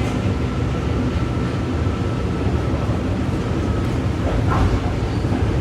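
Steady running rumble of a SMART diesel multiple-unit commuter train in motion, heard from on board, with a faint steady whine over the first few seconds.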